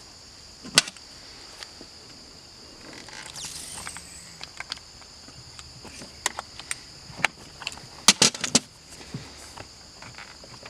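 Scattered sharp metal clicks and knocks as a flathead screwdriver pries a throttle/shift cable end off its fitting inside an outboard remote control box, with the loudest cluster of clicks about eight seconds in. Insects, such as crickets, drone steadily at a high pitch behind it.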